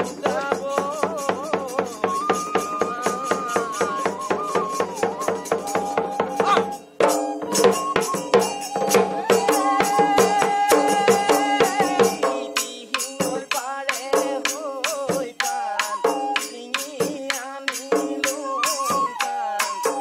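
Folk dance music played on a dhol-style barrel drum and a side-blown flute: the drum beats a fast, even rhythm while the flute carries a held melody. The music breaks off briefly about seven seconds in and goes on with a changed phrase.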